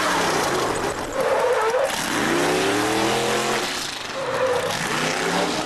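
A motor vehicle's engine revving hard, its pitch swinging up and down several times over a rushing noise.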